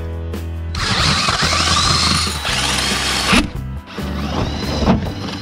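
Craftsman cordless drill turning a hole saw as it cuts through the camper's side wall, in two runs: the first from about a second in until past three seconds, the second starting about a second later. Each run begins with a rising whine as the drill speeds up.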